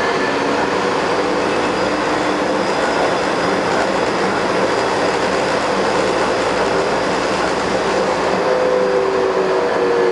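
Taipei Metro Wenhu line Bombardier rubber-tyred train running, a steady loud rolling noise with whining drive tones laid over it; the tones slide slightly lower near the end. The uploader reports that this train has developed an abnormal running noise.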